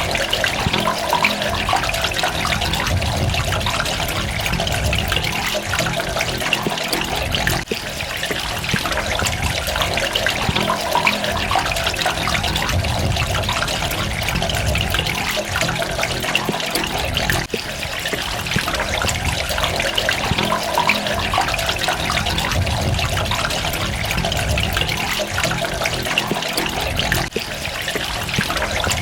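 Running water trickling and splashing in a steady flow, with short dips about every ten seconds.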